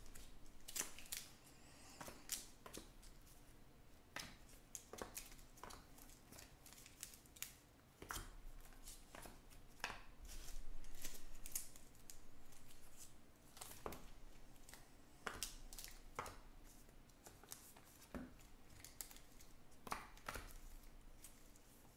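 Trading cards being handled and sorted by hand into piles: irregular light snaps and slides as cards are flicked and set down on the stacks, with a longer rustle of cards about ten seconds in.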